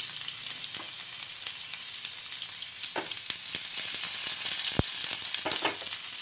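Chopped garlic and ginger sizzling in hot oil in a frying pan: a steady high hiss with a few sharp ticks.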